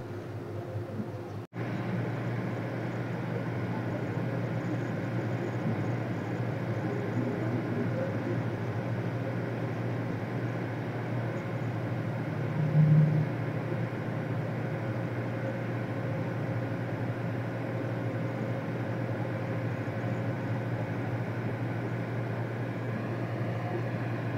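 Ferry's engines running with a steady low drone, heard on board as the boat comes in to dock. There is one brief, loud low thud about halfway through.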